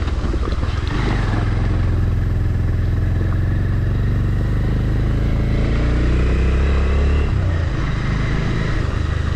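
Motorcycle engine running while riding. The engine note climbs for a couple of seconds and then drops suddenly about seven seconds in.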